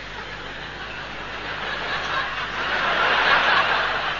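Live audience laughing, building up to a peak about three seconds in and then easing off.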